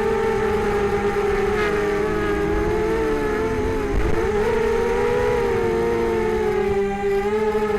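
Six small brushless motors with two-blade props on a mini hexacopter buzzing in flight, several close pitches wavering up and down together, with a brief drop in pitch about four seconds in.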